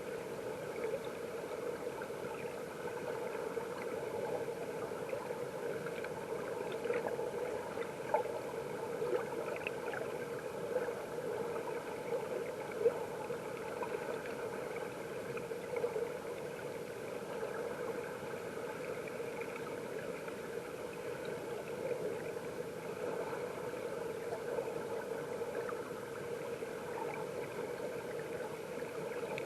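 Mountain stream water heard from underwater: a steady, muffled rushing with a few scattered faint ticks.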